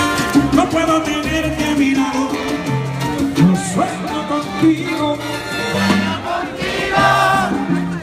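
Live salsa band playing, with horns, a moving bass line and Latin percussion.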